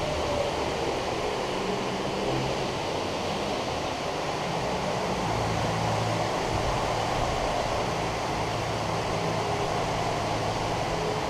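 Heavy tropical rain pouring down in a steady hiss, with a faint low hum underneath that grows a little stronger about halfway through.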